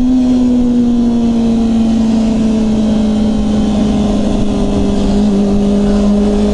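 Supersport motorcycle engine running at freeway speed. Its steady note sinks slowly as it eases off, with wind noise underneath.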